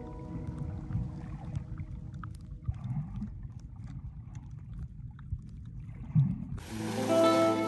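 Sea water sloshing and gurgling around a camera held at the surface while snorkelling: a low rumbling wash with small splashes and clicks. Music comes in loudly near the end.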